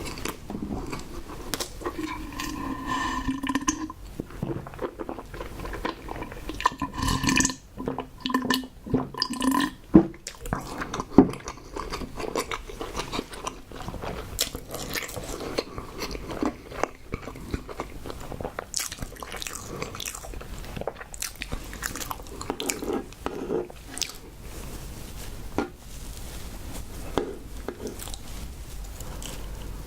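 Close-miked chewing of tapioca pearls and cream bread: many wet mouth clicks and smacks, with a couple of short hums partway through.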